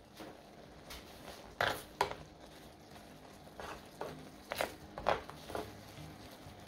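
Wooden spatula stirring tteokbokki in a shallow pan: about half a dozen soft taps and scrapes against the pan, starting about a second and a half in.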